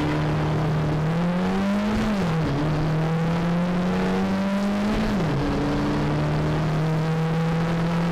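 BMW touring-car engine heard from inside the cockpit, accelerating hard from a standing race start. The revs climb and then drop sharply twice, about two and five seconds in, as the driver shifts up.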